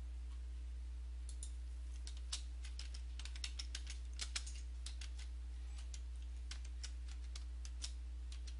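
Keystrokes on a computer keyboard: irregular light taps, starting about a second in, as a short word and a comma-separated list are typed. A steady low electrical hum lies underneath.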